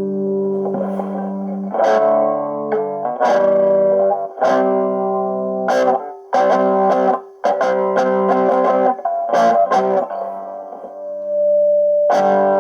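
Homemade cigar box guitar with a dog-bowl resonator and piezo pickup, amplified through a small battery-powered Honeytone amp: chords strummed one after another, each ringing on before the next.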